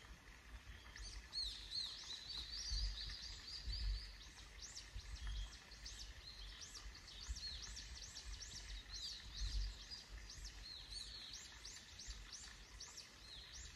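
High-pitched chirping calls repeated a few times a second in long runs, with occasional low rumbles.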